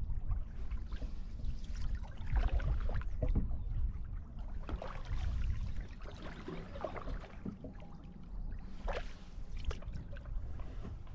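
Canoe paddle strokes in the water, with irregular splashes and drips as the blade dips and lifts, over a steady low rumble of wind on the microphone.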